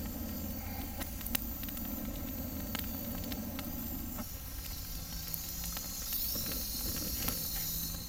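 Steady hiss of a small charcoal fire, with a few faint crackles, as the coals of a disposable cardboard-and-charcoal grill catch and burn. The hiss grows a little brighter about six seconds in.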